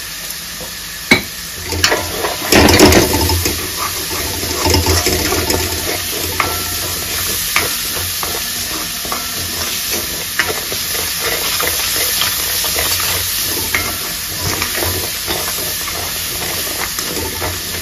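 Onions and ginger-garlic paste sizzling as they fry in a metal kadai, with a ladle stirring and scraping against the pan. The loudest burst of scraping comes about three seconds in, as the stirring gets going.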